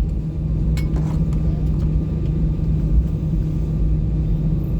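Steady low rumble and hum of an Airbus A320 heard from inside its cabin, with a few faint clicks about a second in.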